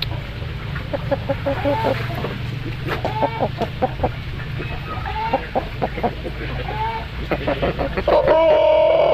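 Pelung rooster giving a series of short clucking calls, then near the end starting a long, level-pitched crow.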